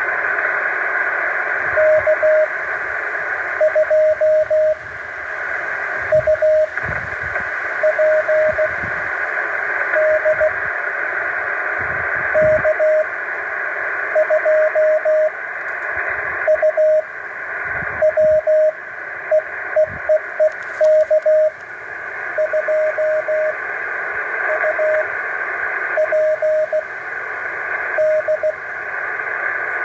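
Morse code (CW) coming through a shortwave radio receiver: a single mid-pitched tone keyed on and off in groups of dots and dashes over a loud, steady hiss of band noise.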